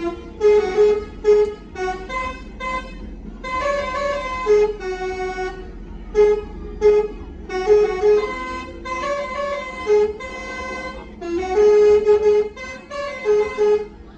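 Telolet basuri musical bus horn playing a fast tune of short and held notes in several phrases. The bus's engine is a low hum underneath.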